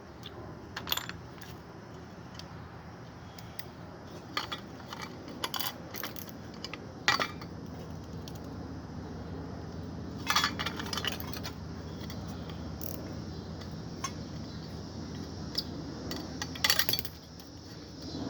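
Irregular metal clinks and clanks of tools and loose parts as an ice maker is taken apart, over a steady low hum. The sharpest clanks come about seven seconds in and near the end.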